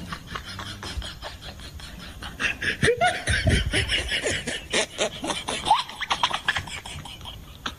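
People laughing: a run of quick, breathy bursts that gets louder about two and a half seconds in.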